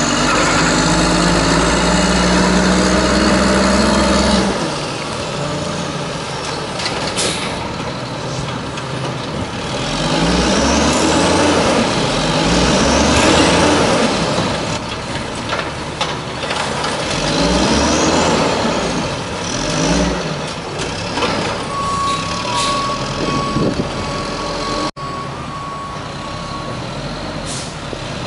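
Natural-gas (LNG) converted 1994 WhiteGMC garbage truck engine, running steadily at first, then pulling away with the revs rising and falling through several gear changes. Near the end a reversing beeper sounds a steady high beep.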